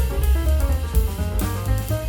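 Jazz-style instrumental music with drum kit, a walking bass line and piano or guitar.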